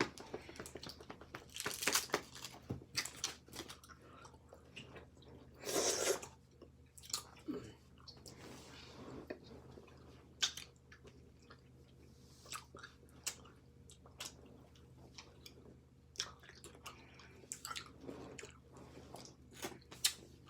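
Close mouth sounds of chewing Hi-Chew chewy candies, with many short wet clicks and a few louder bursts about two and six seconds in.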